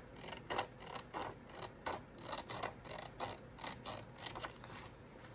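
Scissors snipping through a sheet of paper in a quick series of short cuts, about two to three snips a second, trimming a little off its edge.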